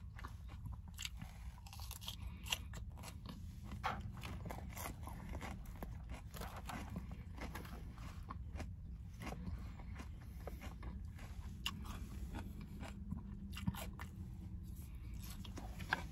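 A person chewing and crunching food close to the microphone: many small irregular crackles and crunches, over a steady low hum.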